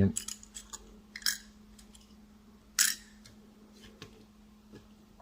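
Small hard clicks and taps of 1/50-scale model parts being handled and set onto a model low-loader trailer: a few quick clicks in the first second, another just after a second in, and the sharpest click a little before three seconds in. A faint steady hum lies underneath.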